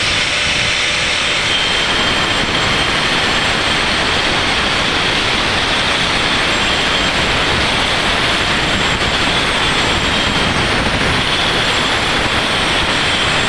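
Electric angle grinder running steadily, its disc cutting a groove along a marked line in a rendered concrete wall. A continuous high motor whine sits over the gritty grinding noise.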